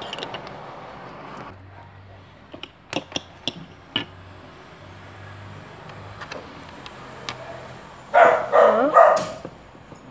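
Small plastic toy figures tapped and set down on a wooden tabletop: a handful of sharp clicks. Near the end comes a brief run of loud pitched calls, the loudest thing heard.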